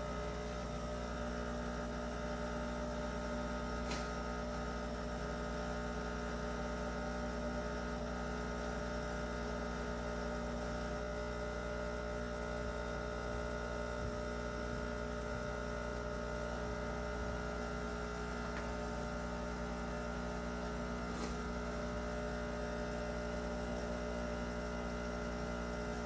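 Breville Dual Boiler BES920XL espresso machine running its automatic clean cycle, its pump pushing water through the group head with a steady hum.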